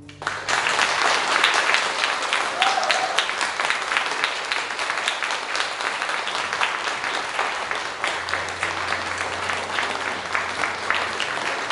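Audience applauding: dense, steady clapping that starts suddenly and keeps on at an even level.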